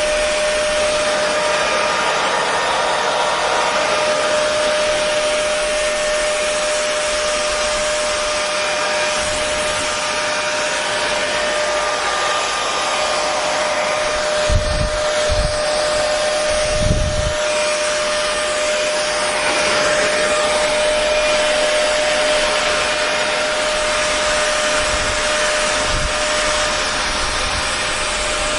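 Hair dryer running steadily: an even rushing of air with a constant motor hum tone. A few brief low bumps come about halfway through.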